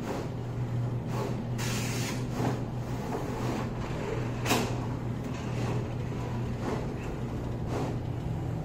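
HP DesignJet XL 3600 MFP wide-format printer running with a steady low hum while printed blueprint paper feeds out into its multi-bin collating stacker. Brief paper swishes come through, with a sharp click about four and a half seconds in.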